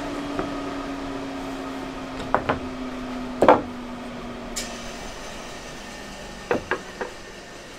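Table saw coasting down after a cut: a steady hum that sags slightly in pitch and fades out about five seconds in. Over it, cut wooden boards knock against the saw table as they are handled and set down. The loudest knock comes about halfway through, and three quicker ones come near the end.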